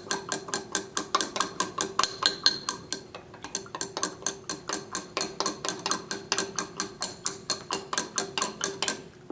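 Glass stirring rod clinking rapidly against the inside of a small glass beaker, about five or six clinks a second, while potassium bromide is stirred into a copper sulfate solution to dissolve it. The stirring stops near the end.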